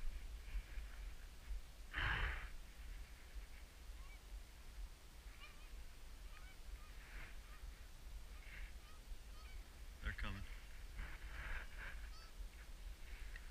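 A flock of Canada geese flying overhead, honking faintly and on and off, with louder honks about two seconds in and again around ten seconds.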